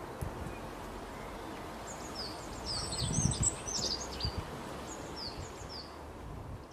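Small birds chirping: short, high, downward-slurred notes, scattered at first and busiest about three seconds in, over a low rumbling outdoor background noise.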